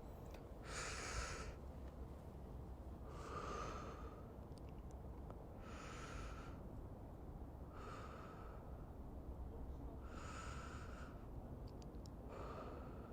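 A person breathing slowly and audibly close to the microphone: six soft breaths at an even pace, about two seconds apart, over a faint steady low background hum.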